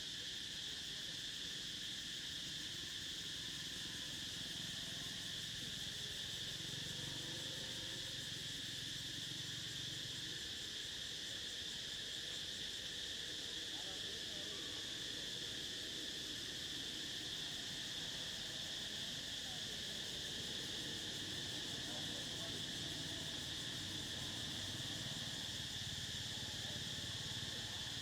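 Steady insect chorus: a continuous high-pitched drone that holds level without a break.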